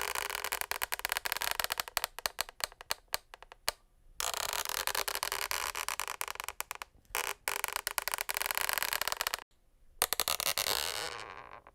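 Scratching and scraping on a wooden parquet floor: a rapid run of small ticks and scratches, then several long rubbing scrapes separated by short pauses, the last one fading away.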